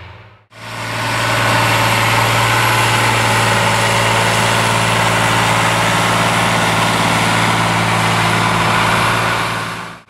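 John Deere 8210T crawler tractor's six-cylinder inline 8.1-litre diesel running steadily under load as it pulls a plough through soft, wet ground. The sound comes in about half a second in and holds an even, loud level.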